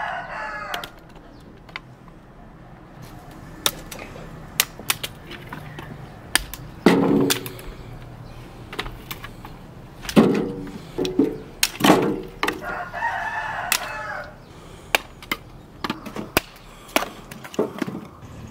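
A rooster crowing twice, briefly at the start and again about two-thirds of the way through. Between the crows come sharp snaps and knocks of dry sticks and branches being handled.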